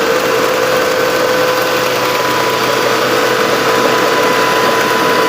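Homemade combine harvester running steadily, its engine droning under a steady whine.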